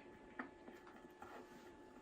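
A few faint metallic clicks of a screwdriver working against the metal crimping tabs of a Casco lighter's bezel as they are pried open.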